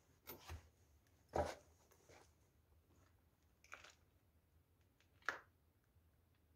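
A few soft, irregular footsteps or scuffs on a dusty, debris-strewn floor, the loudest about a second and a half in, with near silence between them.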